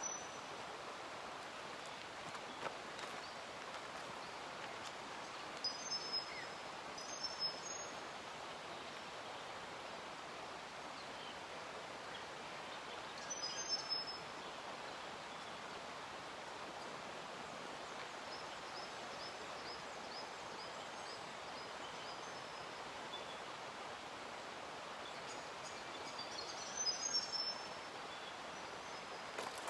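Bush ambience: a steady rushing background with short, high-pitched bird calls breaking in four times, and a faint run of quick repeated bird notes midway.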